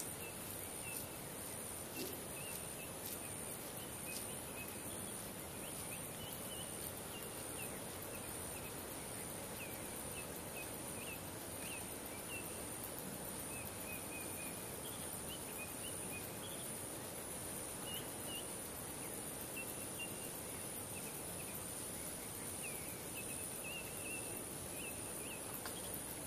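Outdoor ambience of scattered short bird chirps over a steady, high-pitched insect drone and an even hiss.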